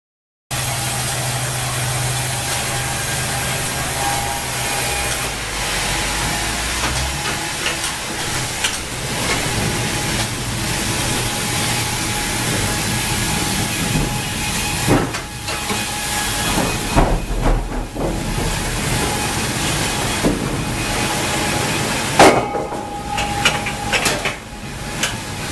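Wravor band sawmill running, a steady loud hiss of the saw and its drive with a faint whine. Several clunks of timber and machinery come in the later part, the loudest about two-thirds of the way through.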